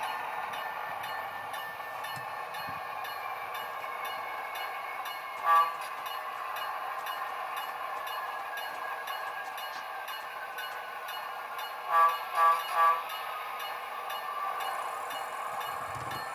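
Model diesel locomotive's sound decoder playing a steady engine sound through a small speaker, with one short horn toot about five seconds in and three quick short toots near the end.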